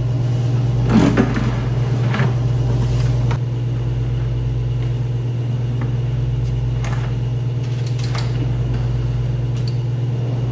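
A steady low machine hum, with a few light clicks and knocks from a metal drawer slide being handled and fitted to a drawer box.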